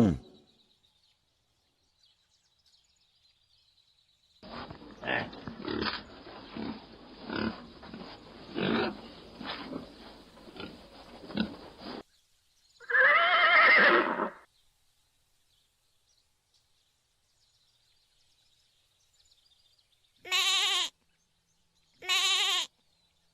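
A sequence of farm animal sounds: several seconds of repeated low grunts, then a single wavering pitched call, and two short pitched calls near the end, with quiet gaps in between.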